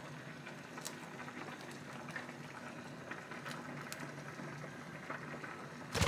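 Pot of pasta water boiling: a faint, steady bubbling hiss with a low hum under it, and a few light ticks.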